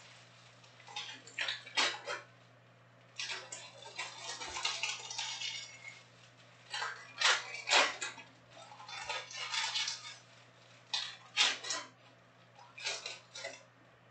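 Trading cards being handled and stacked by hand: irregular bursts of rustling and clicking, about a dozen, with short pauses between.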